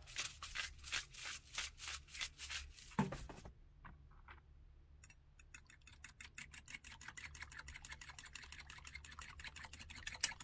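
A fork beating eggs in a bowl: a fast, even clicking of the tines against the bowl, about eight a second, starting about five seconds in. Before it come a few seconds of quick rattling clicks and a single knock about three seconds in.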